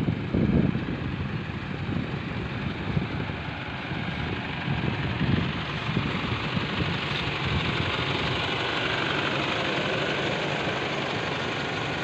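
Steady road and wind noise of a moving car, with low rumbles of wind on the microphone now and then.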